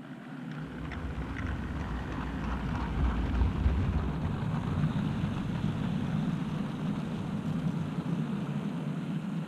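An OO-gauge model freight train of container wagons running past on the track close by: a steady rumble of wheels on rail, deeper during the first four seconds.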